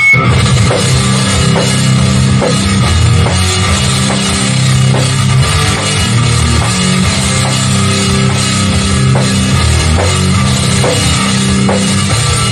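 Hardcore band playing heavy music: distorted guitars, bass and drum kit in an instrumental passage without vocals, with a steady beat. It kicks in all at once.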